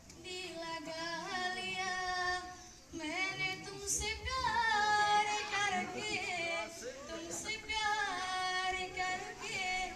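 A girl singing solo into a microphone over a PA, in long held phrases that break off briefly about three seconds in and again about seven seconds in.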